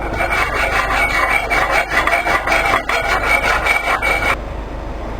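Wood being rubbed down by hand with an abrasive tool in quick back-and-forth strokes; the strokes stop suddenly about four seconds in, leaving a steady, quieter background noise.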